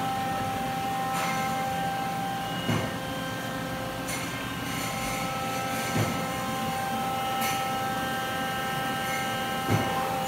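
Hardinge Conquest T-42 CNC turning center running, a steady whine made of several pitches over machine noise. Three short knocks come a few seconds apart.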